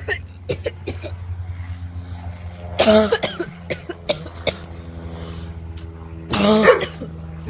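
A person coughs twice, a few seconds apart, gagging at the stench of a dead possum. A low steady hum runs underneath.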